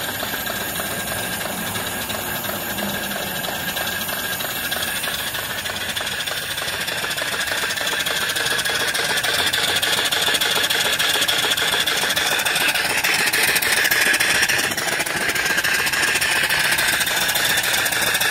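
Homemade single-cylinder steam engine (3-inch bore, 3-inch stroke, cast-iron) running on steam from a boiler: a rapid, even beat of exhaust puffs over a steady steam hiss, growing louder about eight seconds in.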